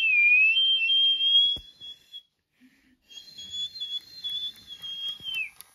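Someone whistling a high tone that wavers slightly in pitch. It comes in two stretches with a short break about two seconds in, and the second one slides down at its end.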